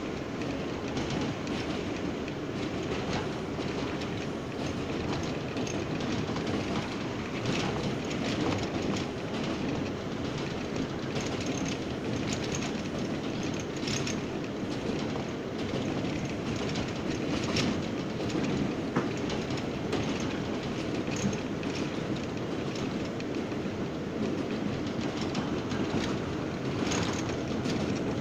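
R179 subway car running at speed along elevated track, heard from inside the car: a steady rumble with irregular clicks of the wheels passing over rail joints.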